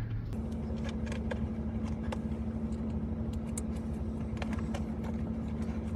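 Steady low hum inside a car, with faint scattered clicks and taps of trim and wiring being handled.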